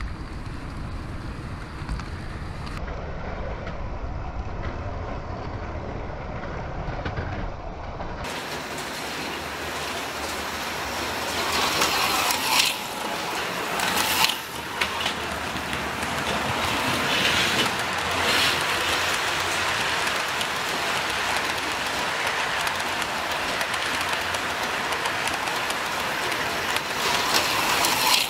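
HO-scale model train running on its track. For the first eight seconds or so it is a low rumble heard from a camera riding on the train. After that it is a steady trackside hiss, with several louder swells as AFX slot cars race past on the neighbouring track.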